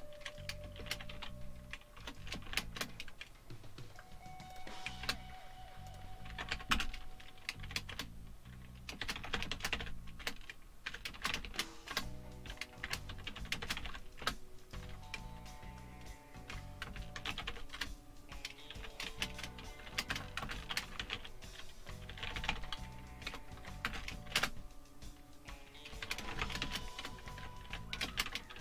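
Typing on a computer keyboard: quick, irregular key clicks in runs with short pauses, over quiet background music.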